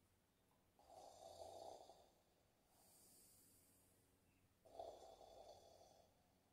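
A person snoring faintly: two snores about four seconds apart, with a softer breath between them.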